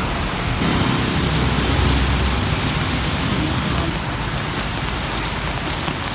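Heavy rain falling on a street, a steady hiss of rain with road traffic sound underneath.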